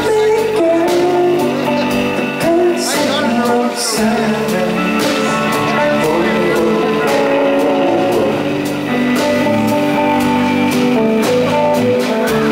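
Rock band playing live: electric guitar and a drum kit with cymbals struck on a steady beat, with a man singing.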